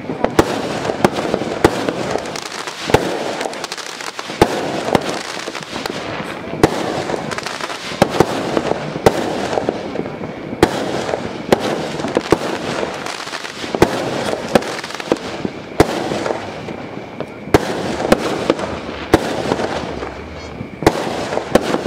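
Fireworks going off continuously: sharp bangs every second or so over a steady crackle of many smaller bursts.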